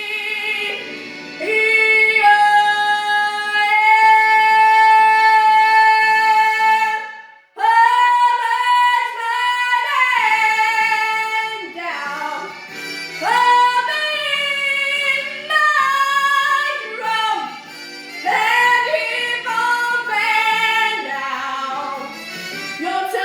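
An eleven-year-old girl singing a show tune. About two seconds in she holds one long steady note for roughly five seconds, breaks off, then sings on through quicker, moving phrases.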